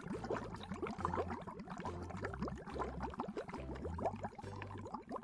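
Underwater bubbling sound effect: many quick, rising bubble blips packed closely together, over a low hum that steps in pitch.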